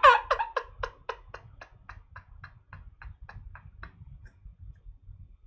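A woman laughing hard in a quick run of short pulses, about four a second, growing fainter until they die away about four seconds in.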